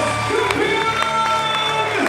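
Music with long held notes playing over a crowd applauding and cheering.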